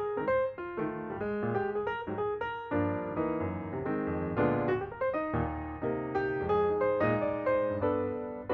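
Outro music played on piano or electric piano, a run of distinct notes and chords.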